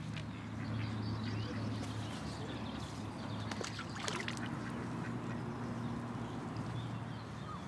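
Ducks quacking on the pond, over a steady low hum.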